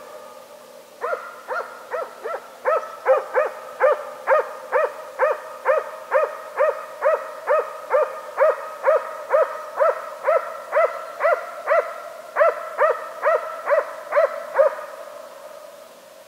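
A hunting dog barks in a steady, even rhythm of about two barks a second, each bark ringing out with a short echo. The barks pause briefly near the start and stop a second or two before the end.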